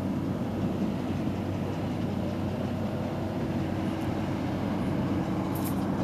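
New Holland TX65 combine harvester running steadily while harvesting wheat: an even engine and machinery drone.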